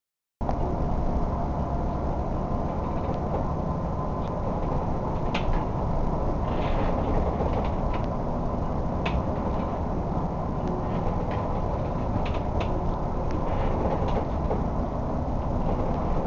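Crab boat labouring in a storm: a steady low rumble with scattered creaks and sharp clicks from the vessel and its gear.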